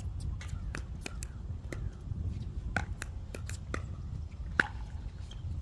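Wind buffeting the microphone as a steady low rumble, with scattered light clicks and taps and one sharper tap a little after four and a half seconds in.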